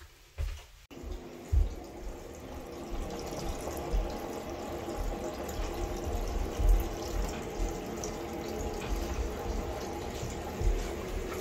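Water running steadily, draining through the newly installed brass shower drain and black plastic P-trap, heard from below through the ceiling access opening. It starts abruptly about a second in, with a few low bumps over it.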